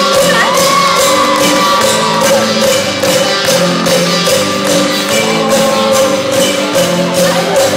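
Live rock band playing on a steady beat, with struck metal percussion that includes cowbell.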